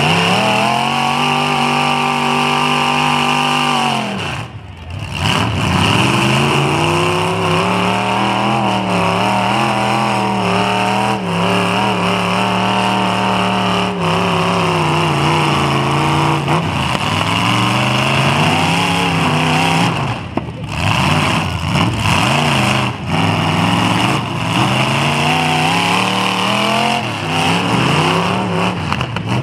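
Demolition derby car engines revving hard, their pitch rising and falling as the cars shove against each other, with the revs dropping off briefly about four seconds in and again about twenty seconds in.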